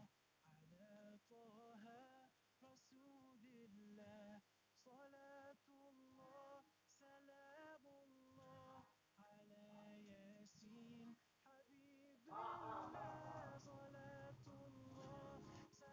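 Faint background song: a solo voice singing long, wavering held notes in short phrases, joined about twelve seconds in by a louder, fuller passage with deeper backing.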